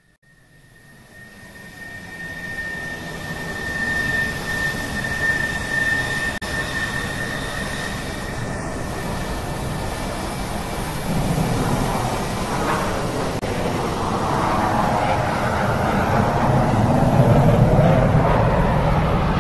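Jet airliner engines at takeoff power, heard from inside the passenger cabin: a steady roar that fades in, with a high steady whine over the first half, then grows fuller and louder as the plane climbs.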